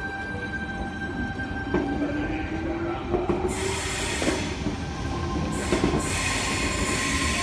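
Tangara electric train pulling along the platform, its traction motors whining with a pitch that rises about two seconds in, over rail and wheel noise. From about the middle on, loud bursts of hiss come and go.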